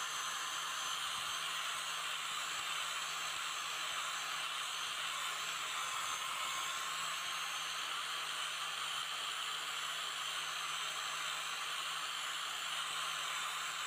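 Electric angle grinder running steadily with its abrasive disc held against the steel blade of a knife, grinding off rust and metal in an even hiss.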